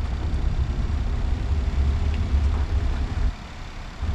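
Vehicle rolling slowly along a campground loop road: a steady low rumble of engine and tyres, easing off briefly near the end.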